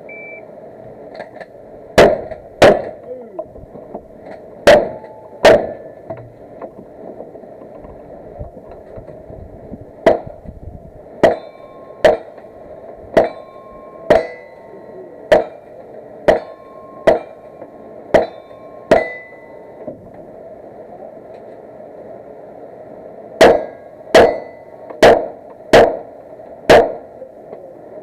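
A string of gunshots fired at steel targets, with the ring of struck steel after several of them. Four shots come in the first few seconds, then about ten at roughly one a second, then five more in quick succession near the end.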